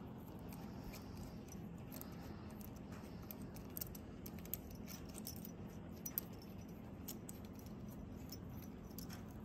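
Faint small metallic clicks and ticks of AN hose fittings being hand-threaded onto an oil catch can's ports, a couple of sharper clicks in the middle, over a steady low hum.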